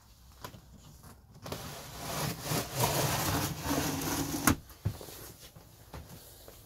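Tambour roller shutter on a curved cabinet being slid shut, its slats rattling along the track for about three seconds and ending in a sharp click as it closes.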